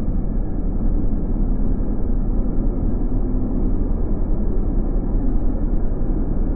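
Steady low rumble of heavy machinery running, even in level throughout.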